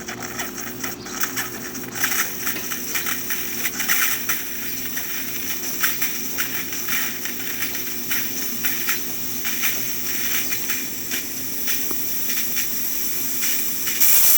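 DeLonghi Magnifica espresso machine's steam wand opened while the machine heats up for steam: a low steady hum, then from about two seconds in a hiss with rapid spitting crackles as the steam comes through under pressure.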